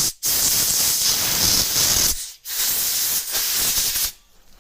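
Hissing spray blasts cleaning the brake banjo bolt: a brief burst, then two long blasts of about two seconds each with a short break between.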